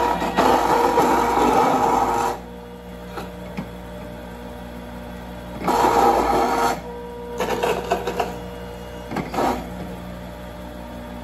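Cold-press juicer's grinding stage running with a steady motor hum, breaking into loud grinding spells as cranberries and black grapes are pushed into the auger and ground to mash. The first spell lasts about two seconds, another comes around six seconds in, then two shorter ones follow.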